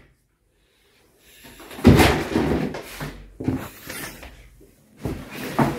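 Broom knocking and bumping against chair and table legs during floor sweeping, with irregular clattering knocks starting after about a second of silence.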